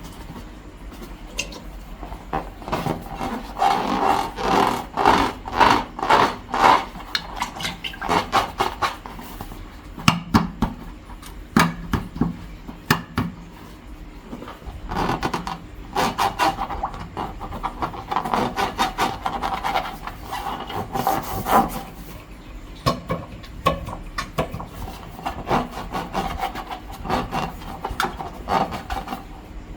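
Slime and long rubber balloons being worked by hand: a dense run of rapid crackling, squelching and rubbing sounds that comes in clusters, easing off briefly a couple of times.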